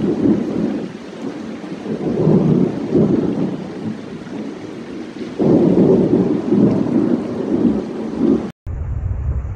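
Rolling thunder rumbling over steady rain, swelling about two seconds in and again louder from about halfway. Near the end the sound drops out for an instant and gives way to a duller low rumble.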